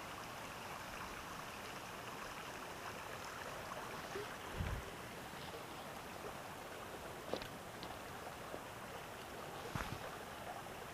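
Faint, steady rush of a shallow brook running over stones, with a soft low thump about halfway through and a couple of small clicks later on.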